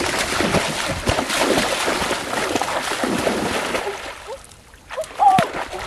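Legs splashing and churning through shallow marsh water as a person runs and wades, dying down about four seconds in. A short pitched call sounds about five seconds in.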